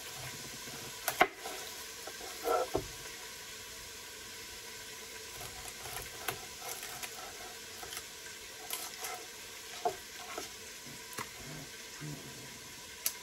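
Cubed chicken sizzling in olive oil in an Instant Pot on sauté, a steady frying hiss. Scattered knife knocks and taps on a cutting board as an onion is peeled and cut, the sharpest about a second in.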